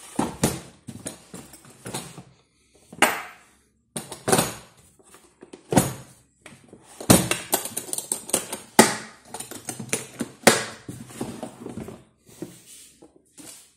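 Irregular clicks, knocks and clatter of hard objects being handled, with uneven gaps between them.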